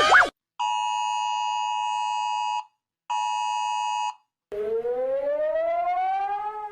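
Emergency alert alarm: a steady two-note alert tone sounds for about two seconds, stops, and sounds again for about a second. Then a siren starts and rises slowly in pitch.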